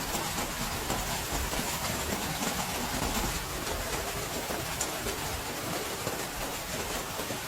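Heavy rain falling steadily: a dense, even hiss with scattered sharper drop hits and a low rumble.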